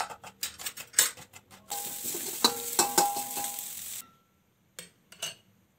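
Knife chopping on a wooden cutting board in a run of quick taps, then, about a second and a half in, food sizzling in a hot pan with a metal spatula clanking and scraping as it is stirred. The sizzle cuts off suddenly about four seconds in, leaving a few faint clicks.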